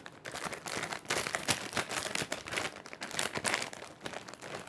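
Plastic packaging crinkling as squishy toys are handled: a dense, irregular run of crackles and small snaps.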